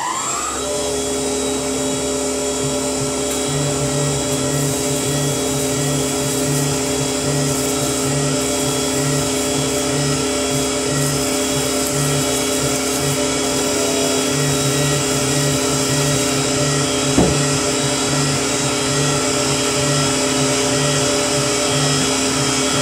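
Tormach CNC milling machine's spindle ending its spin-up at cycle start and then running with a steady whine while machining aluminium parts under flood coolant. A regular low throb repeats through it. There is a single sharp knock about 17 seconds in.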